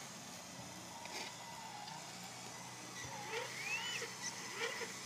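Radio-controlled Liebherr 576 scale wheel loader model driving with a faint, steady low hum. Scattered high chirps and short whistling glides come in over it about three seconds in.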